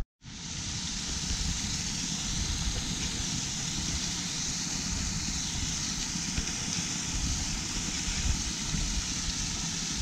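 Small waterfall in a creek, water pouring with a steady, even rush.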